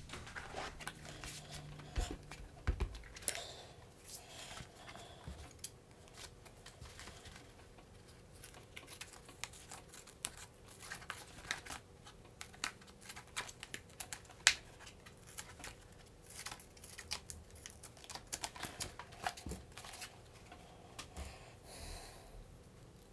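Scissors cutting a circle out of thin cardboard: a long run of short, quiet snips and crackles. There are a few knocks and rustles of the card being handled in the first few seconds.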